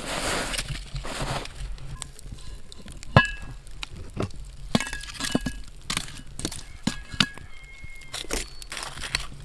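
Metal tongs clinking and knocking against a cast-iron Dutch oven and its lid as hot coals are set around and on top of it. There are many sharp clicks and clinks, some ringing briefly, the loudest about three seconds in, after a rushing scrape in the first second and a half.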